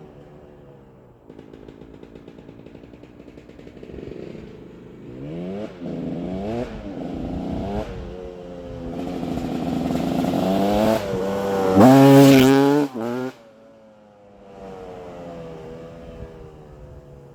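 2006 KTM 200 EXC's single-cylinder two-stroke engine on its stock exhaust, running and revved: a few short blips, then a longer climb to its loudest rev about twelve seconds in, which cuts off sharply before the engine falls back to a lower, quieter running sound.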